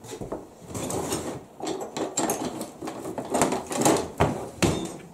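Rummaging through a kitchen utensil drawer: utensils clattering and knocking against each other and the drawer, with two sharp knocks near the end.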